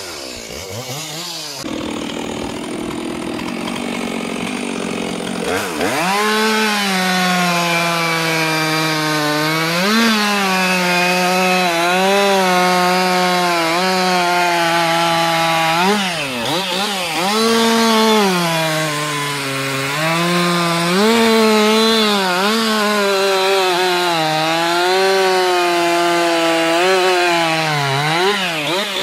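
Stihl two-stroke chainsaw at full throttle cutting through thick hardwood logs. The engine pitch repeatedly sags as the chain bites under load and picks up again, with sharper drops about halfway through and near the end.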